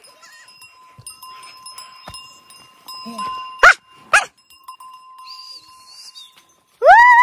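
Goats calling while being herded: two short, sharp calls about half a second apart, then a loud, drawn-out bleat near the end that rises and falls in pitch.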